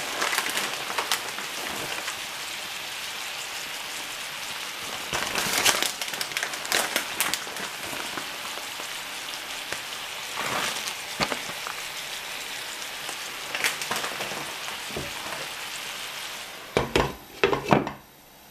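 Chicken, broccoli and cauliflower sizzling in a frying pan: a steady hiss with scattered sharp crackles. Near the end a glass pan lid knocks onto the pan about three times, and the sizzle drops away under it.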